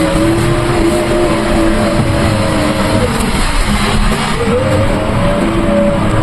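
JCB 3DX backhoe loader's diesel engine running under load. Its pitch drops about three seconds in, then revs back up a second or so later as the machine works.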